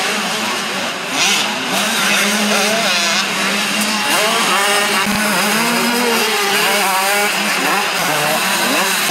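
Several motocross motorcycles racing together. Their engines rev up and ease off in overlapping rising and falling whines.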